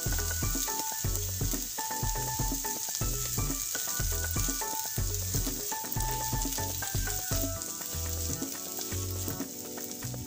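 Chopped vegetables sizzling steadily in hot ghee in a frying pan, stirred and turned with a silicone spatula. Background music with a steady beat and a simple melody plays along.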